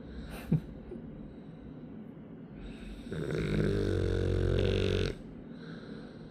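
A sleeping dog snoring: one long rasping snore of about two and a half seconds, starting near the middle. About half a second in there is a single short, sharp click, the loudest moment.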